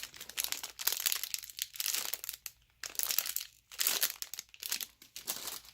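Crinkly packaging crinkling and rustling as it is handled, in irregular bursts with two short pauses.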